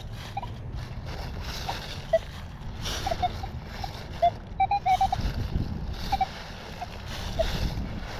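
Nokta Legend metal detector's built-in speaker giving short, irregular beeps at a few different pitches as the coil is swept over ground full of junk targets, including a quick run of four beeps about five seconds in. A steady low background noise runs beneath.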